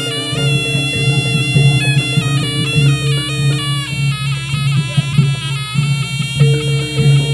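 Jaranan (kuda lumping) gamelan music: a nasal reed wind instrument plays a melody that steps from note to note over a steady pulsing beat of drums and gongs.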